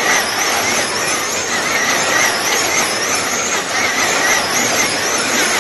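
Wing-class slot cars lapping a large multi-lane track. Their small electric motors whine high, the pitch rising and falling over and over through the laps, over a steady rush of running noise.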